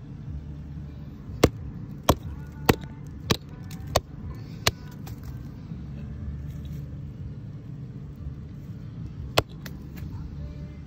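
Sharp knocks on the trunk of a red oak killed by oak wilt: six in a row about two-thirds of a second apart, then one more near the end, over a low steady rumble.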